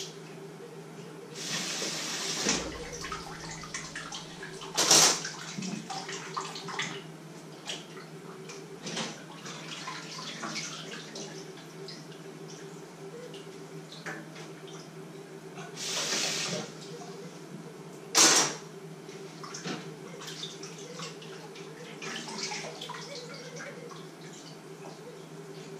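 Dishes being washed by hand at a kitchen sink: the tap runs briefly twice, with clinks and knocks of dishes and utensils, two sharp clanks the loudest. A steady low hum runs underneath.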